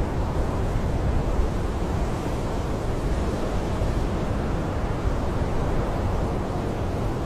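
Blizzard wind blowing steadily, an even low rushing noise with no gusts or breaks.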